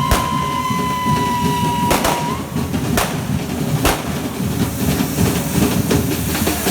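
Correfoc fireworks: sharp firecracker bangs about once a second over continuous crackling noise, with a high steady whistle that ends about two seconds in.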